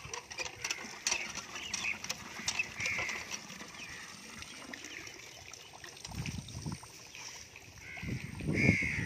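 Hand water pump being worked, its handle clicking and clanking, with water pouring into a concrete trough. A bird calls a few times in short falling calls, the loudest near the end.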